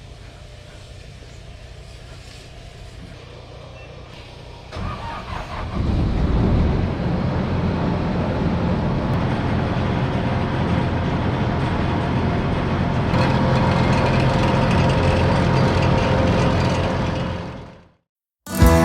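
Iseki HC1100 combine harvester's engine running at a low idle, then throttled up about five seconds in to a steady, much louder working speed. The sound fades out near the end.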